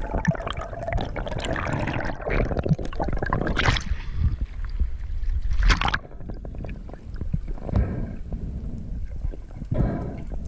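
Water splashing and gurgling with scattered clicks, two louder splashes, and an abrupt change about six seconds in.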